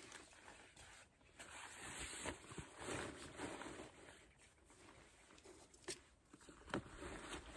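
Faint rustling of a backpack and gear being handled and packed, nylon fabric scraping and crumpling, with a couple of sharp clicks about a second in and near six seconds.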